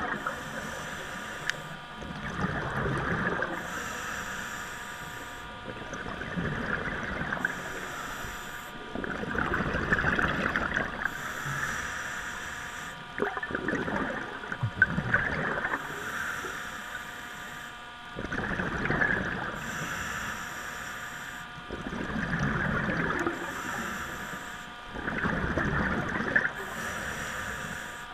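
Scuba diver breathing through a regulator underwater: a hiss on each inhale alternating with a bubbling rush of exhaled air, repeating about every 3 to 4 seconds.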